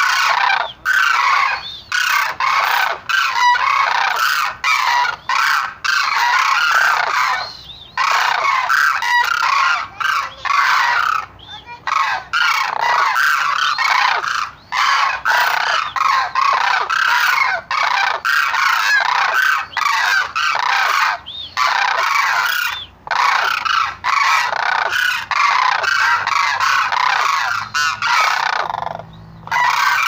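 A flock of cranes calling, many loud calls overlapping one another, broken every few seconds by abrupt short gaps.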